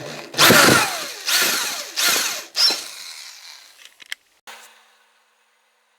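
Power drill run in three short bursts, drilling a 17/64 in. hole through a small piece of metal pipe; the pitch falls as the drill slows at the end of each burst. A couple of light clicks follow near the end.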